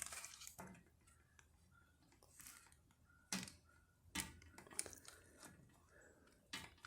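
Near silence broken by a few faint clicks and knocks, three of them sharper, from a motorcycle radiator fan assembly being handled and tried against a replacement radiator.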